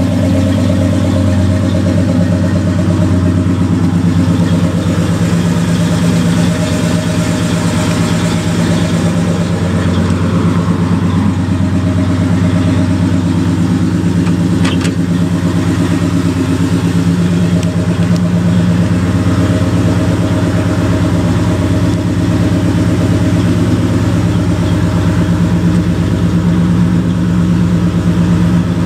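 1970 Dodge D100 pickup's 318 cubic-inch V8 idling steadily.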